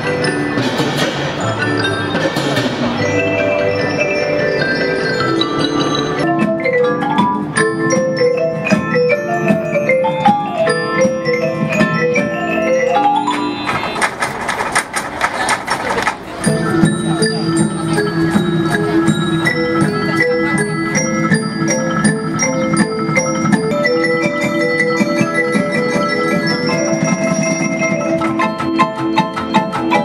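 A school percussion band playing a tune on mallet instruments such as marimbas, xylophones and glockenspiels, in quick runs of ringing notes over a steady lower part. About halfway through, a loud noisy swell briefly covers the melody before the mallet notes resume.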